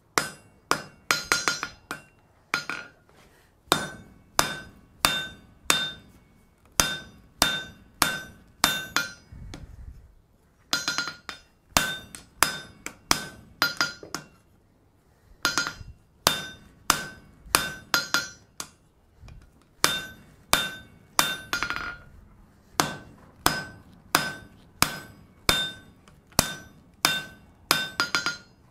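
Hand hammer forging a hot stub of 1084 steel held in tongs on an anvil: a steady run of blows, roughly one or two a second, each with a bright metallic ring from the anvil, broken by a couple of short pauses.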